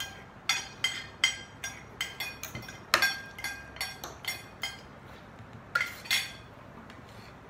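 Metal spoons and forks clinking against plates during a meal: a quick run of a dozen or so ringing clinks, a short pause, then two more near the end.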